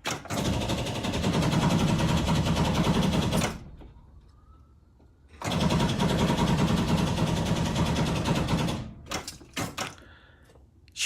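A 2003 International school bus's starter system is tried twice, each time giving a rapid buzzing chatter for about three and a half seconds, with a pause between. The diesel engine does not catch, despite new batteries.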